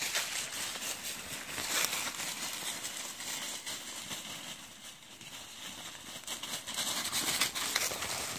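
Dry fallen leaves crunching and rustling under footsteps and dogs' paws moving through the leaf litter, a continuous crackle with many small snaps.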